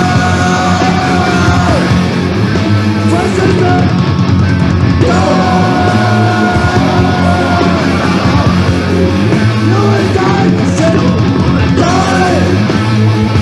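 Loud punk rock: distorted electric guitars, bass and drums playing hard, with yelled vocals and long held, bending notes over the top.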